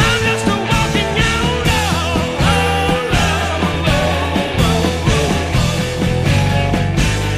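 Rock music with a steady drum beat, a sustained bass line and a gliding lead melody.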